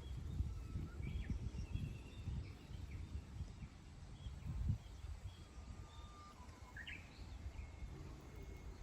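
Songbirds chirping and calling here and there, short high notes and quick rising and falling calls, with one slurred call about seven seconds in. Underneath runs a low, uneven rumble that is heaviest in the first five seconds and eases after that.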